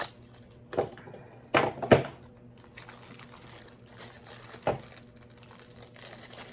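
Combination padlocks being handled: about five sharp clicks and knocks, the loudest a close pair about two seconds in, over a faint steady hum.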